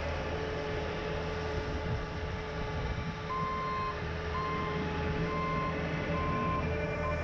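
Bobcat T595 tracked skid steer running steadily with its brush cutter attachment. About halfway through, its backup alarm starts beeping as the machine reverses: four beeps a little under a second apart, then a short one near the end.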